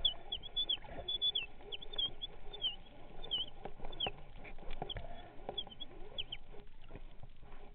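Underwater sound heard through a submerged camera housing: a rapid run of short, high, falling squeaks with scattered clicks over a low rumble. The squeaks thin out and stop about two-thirds of the way through.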